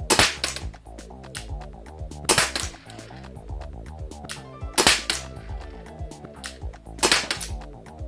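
Tokyo Marui LCP gas airsoft pistol firing four single shots, each a sharp pop, about every two and a half seconds.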